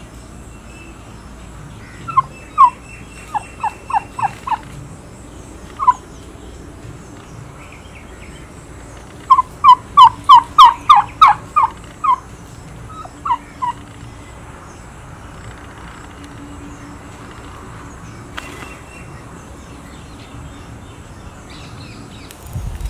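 A bird calling loudly in quick runs of short repeated notes: about seven notes around two seconds in, a single note, then a louder run of about a dozen notes about nine seconds in, with a couple more after.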